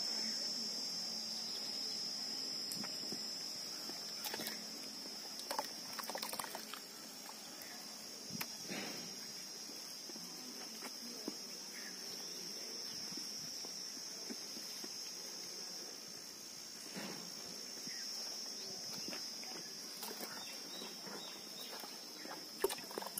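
Steady high-pitched insect chirring, with scattered light taps and knocks.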